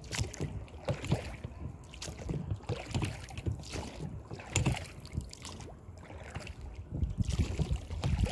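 Rowboat moving across a lake: water lapping and splashing around the hull with irregular knocks, and wind rumbling on the microphone.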